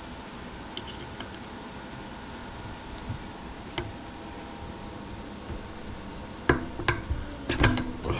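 Metal wrench and tool clinking against a BMX cassette hub as they are worked onto the cog: a few light ticks, then a cluster of sharper metallic clanks near the end.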